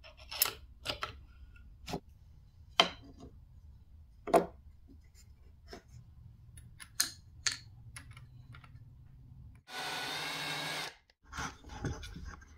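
Scattered light metal clinks and taps of a wrench and pliers on nuts, bolts and washers while plywood caster wheels are bolted together. Near the end a power tool whirrs steadily for about a second.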